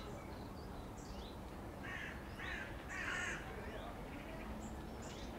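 Harsh bird calls, three in quick succession about two seconds in, the last the loudest, over faint background chirping.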